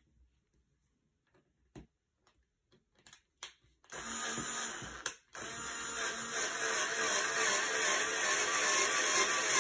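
A few faint clicks, then about four seconds in a small cordless screwdriver starts running, driving a screw into the bed frame; it stops briefly about a second later, then runs on steadily.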